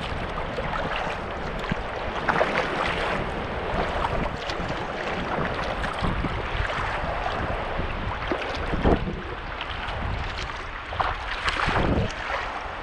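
Sea kayak under way in choppy water: water sloshing and splashing around the hull and paddle, with a few louder splashes, and wind blowing on the microphone.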